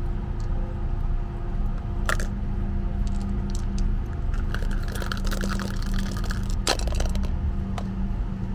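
Two plastic dice rattling inside a plastic flower pot used as a dice cup, with small clicks as they tumble in the middle and sharp knocks as the pot is put down on a stone ledge.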